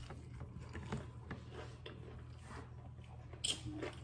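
Quiet chewing and small eating noises over a low steady hum, with one sharper click about three and a half seconds in.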